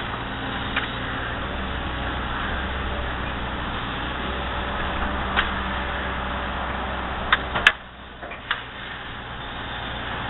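Excavator's diesel engine running steadily, with a few sharp clicks or knocks; the loudest, a pair about seven and a half seconds in, is followed by a brief drop in the engine sound.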